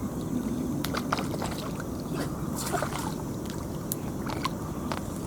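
Water sloshing, with a few light splashes and ticks, as a hooked fish is pulled out of the waterweeds.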